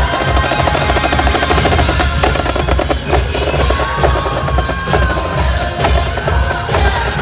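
Marching snare drums played in a rapid rhythm with music, a melody line coming in about halfway through.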